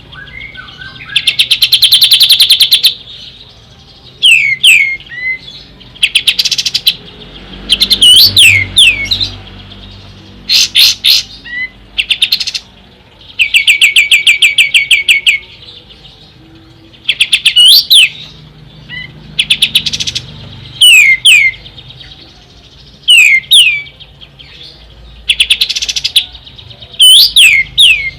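Pied triller (kapas tembak) singing loudly in repeated phrases: fast trills of rapidly repeated notes lasting about a second and a half, alternating with short, sharp down-slurred whistles.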